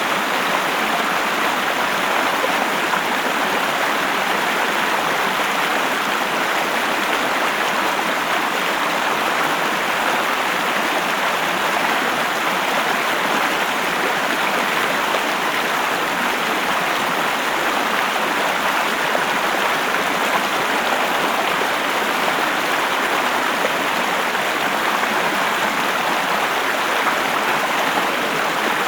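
River water flowing and splashing, a steady rushing that stays even throughout.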